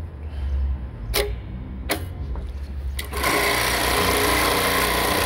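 Atlas USA AT-1904 industrial bartack sewing machine: a low motor hum with two sharp clicks about a second apart, then about three seconds in the machine starts stitching, a fast, dense, steady mechanical rattle.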